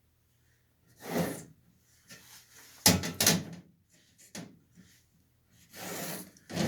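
A few separate knocks and scrapes of things being handled, the loudest about three seconds in, with quiet gaps between them.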